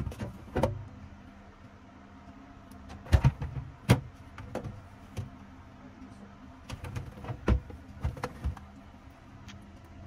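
Clear plastic refrigerator vegetable drawer being pulled open and handled, giving sharp plastic clacks and knocks: a few near the start, a loud cluster about three to four seconds in, and more between about seven and eight and a half seconds.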